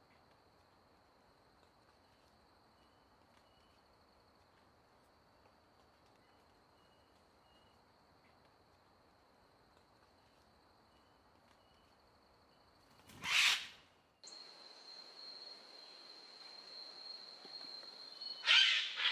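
Outdoor nature ambience: a steady, high-pitched trill with faint repeated chirps. A loud, brief call-like sound comes about 13 s in, then the ambience turns louder after an abrupt cut, and a second loud brief sound comes near the end.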